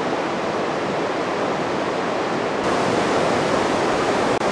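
Steady rushing noise of running water, even and unbroken, with no distinct events.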